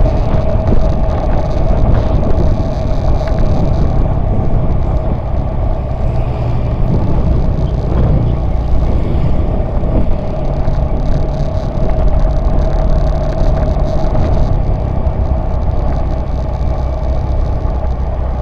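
Motorcycle riding along a street, its engine running steadily with a constant hum, under heavy wind rumble on the mounted camera's microphone.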